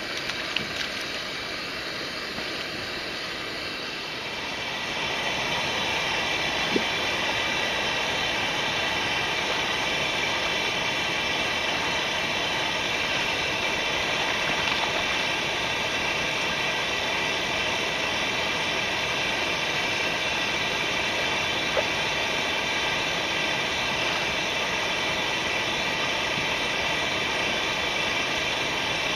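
Steady rushing of mountain-stream water, growing louder about five seconds in, with a few faint clicks.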